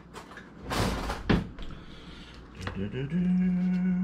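A short rustle and a sharp knock about a second in, as a kitchen knife is taken up to cut chicken on a wooden cutting board. From about three seconds in, a man hums one note that rises and then holds steady.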